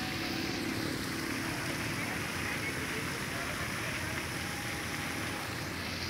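Floating fountain aerators spraying water onto a lake, a steady splashing hiss.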